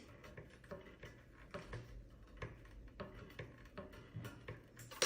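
Faint, irregular light clicks and taps of small screws and a little screwdriver being handled.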